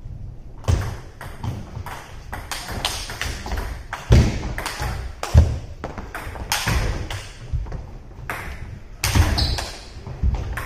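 Table tennis rally: the ball clicking off paddles and the table in quick, irregular succession, with a few heavier thuds of footwork on the wooden floor.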